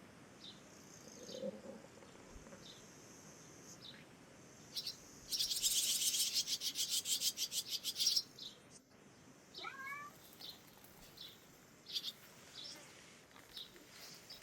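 Small birds chirping with short high calls, and a loud rapid run of chirps lasting about three seconds a little past the middle. A short rising call comes about ten seconds in.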